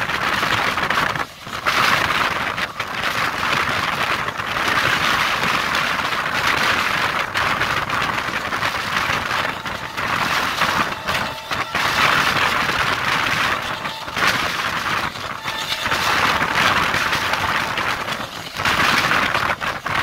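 Rushing running noise of a moving passenger train heard from an open coach doorway: wind and wheels on the rails in a loud, steady rush, with brief dips about a second in and near the end.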